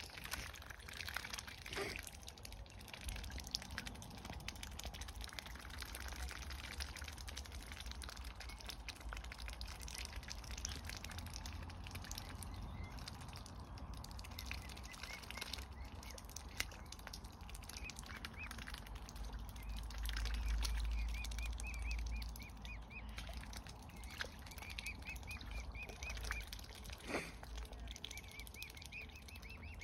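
Mute swan cygnets peeping in runs of short high calls, mostly in the second half, over the scattered wet clicks of swan bills dabbling in shallow water for seeds. A low rumble swells partway through.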